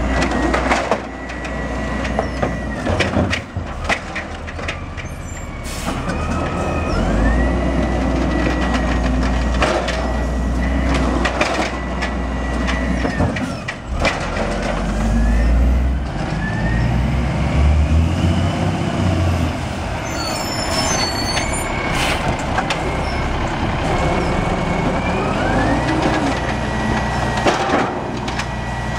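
Automated side-loader garbage truck at work: the diesel engine revs up and down as the hydraulic arm lifts and dumps carts. There are repeated sharp bangs of carts slamming against the hopper, and a hydraulic whine that glides up in pitch and holds, several times. An air brake hisses briefly about two-thirds of the way through.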